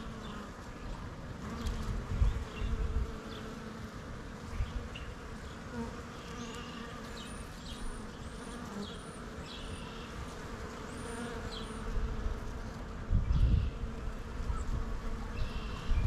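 Honeybees buzzing steadily as they forage on a flowering shrub, the hum of many bees together, with a few low rumbles on the microphone about two and thirteen seconds in.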